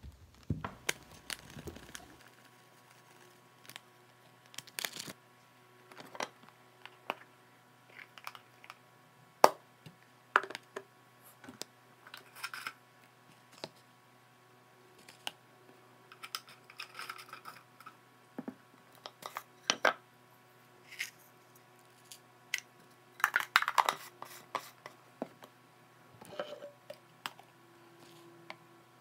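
Kitchen handling sounds: a spoon tapping and scraping in a plastic food container while a seasoning sauce is stirred, with containers and lids being picked up and set down. Irregular clicks and knocks, with a few short runs of scraping.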